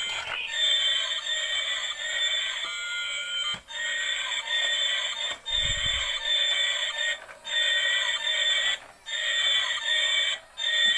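Battery-operated light-up toy train's small built-in speaker playing a tinny electronic tune, broken by a few short pauses. A knock right at the start as a hand grabs the toy.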